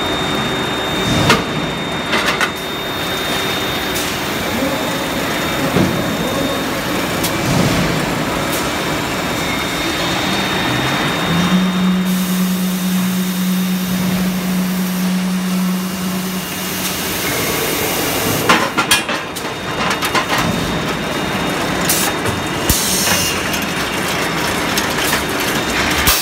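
Forging-shop machinery noise during pinion forging: a loud, steady din with a few sharp knocks and clangs, most of them close together about three quarters of the way through. A low steady hum comes in around the middle and lasts about five seconds.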